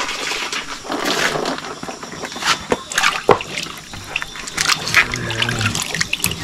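Water splashing and sloshing as food is washed by hand in water, with several sharp knocks in between.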